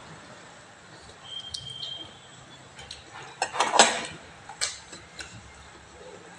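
Stainless steel plates and bowls clinking and tapping as food is taken from them by hand, a scatter of sharp clinks with the loudest cluster just past the middle.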